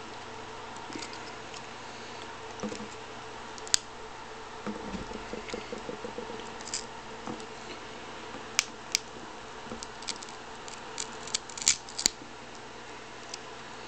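An old Hynix 128 MB memory module being pried and torn apart by hand: a scatter of sharp clicks and snaps, with a stretch of fine crackling and scraping about five seconds in. Several clicks come close together about twelve seconds in.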